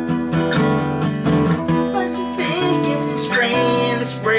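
A song: strummed acoustic guitar chords, with a singing voice coming in about two seconds in.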